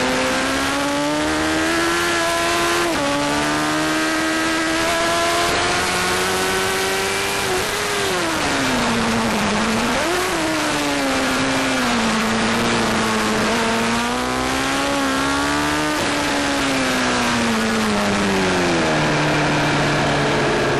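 Honda sport bike engine at racing speed with heavy wind rush on the onboard microphone: it revs up, drops with an upshift about three seconds in, falls away under braking and downshifts around eight to ten seconds, builds again, then winds down near the end as the bike slows.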